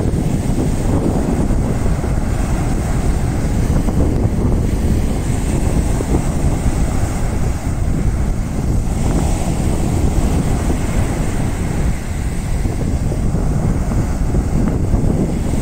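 Wind buffeting the microphone in a steady low rumble, over waves breaking and washing up a sandy beach.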